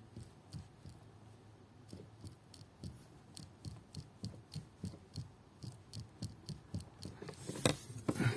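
Opel Astra H steering intermediate shaft (steering cardan) knocking as it is jerked back and forth by hand: a dull knock, repeated about three times a second, with two louder knocks near the end. The owner suspects play in this shaft as the cause of the knock felt in the steering wheel over speed bumps and road joints.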